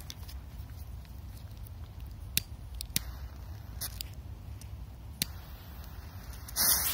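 A lighter clicking a few times, sharp single clicks spread over several seconds, as a firecracker's dead fuse is relit. Near the end, a short hiss as the fuse catches.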